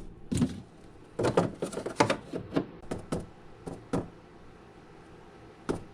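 Irregular knocks and clunks of a small power board being handled and fixed in place on a workbench, a quick run of them over the first four seconds and one more near the end.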